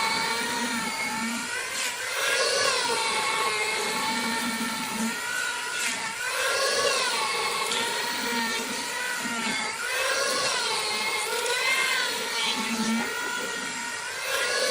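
A power tool's motor running with a whine whose pitch sags and comes back up roughly every four seconds.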